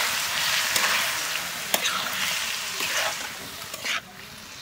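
Chicken curry sizzling in a hot aluminium kadai, with water freshly added to the oil. A spatula stirs it, scraping and knocking against the pan about four times. The sizzle fades near the end.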